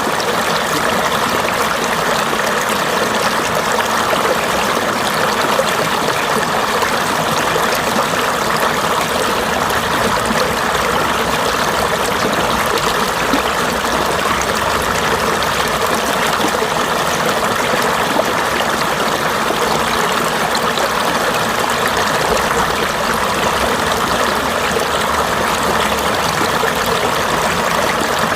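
Mountain stream flowing over rocks: a steady, unbroken rush and trickle of water.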